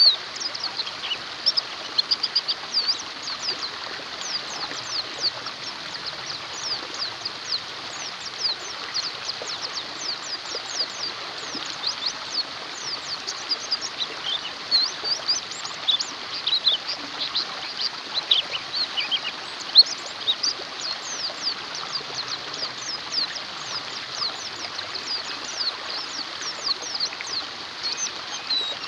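Several white-eyes (pleci) chirping and twittering nonstop in quick, high, sharp notes over the steady rush of a flowing stream.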